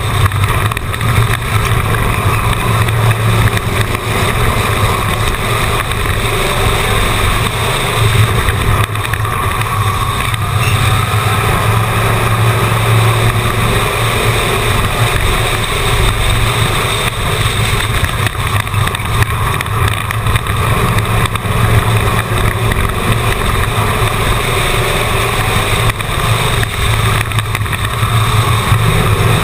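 Race car engine running hard at speed on a short oval track, heard from onboard the car. It is loud and continuous, with small swells as the car goes through the turns.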